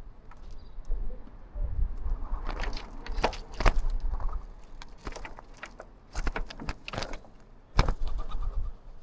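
Birds calling in a string of short, harsh calls, bunched in three groups, over a low rumble.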